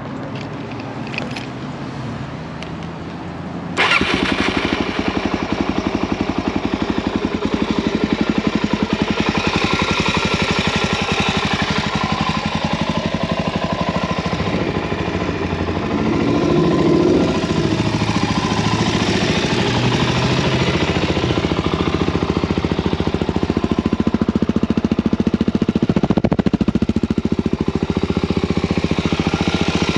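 2017 Suzuki DR-Z400SM's single-cylinder four-stroke engine, breathing through a full Yoshimura exhaust system, catches and starts suddenly about four seconds in, then runs at a steady idle with a slight swell partway through.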